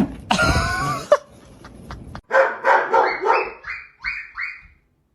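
A small dog barking in a quick run of short, high yaps lasting about two and a half seconds, after a brief wavering whine-like sound near the start.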